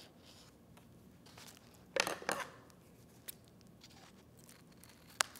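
Scissors trimming plastic bubble wrap glued to a paper craft, with faint crinkling of the wrap as it is handled. There are two louder crinkles about two seconds in and a sharp click near the end.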